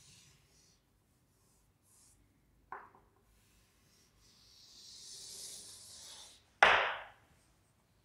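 Chalk scraping on a chalkboard as a curve is drawn: a faint scratchy hiss that grows louder about halfway through. Two short sudden sounds break in, a small one about three seconds in and a louder one near the end.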